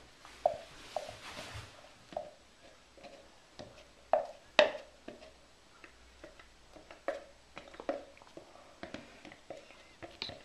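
Egg yolk poured from a plastic jug onto whipped egg whites in a glass bowl with a soft rush at the start, then a silicone spatula folding it in: soft scrapes and irregular light taps against the glass, with two sharper clicks about four seconds in.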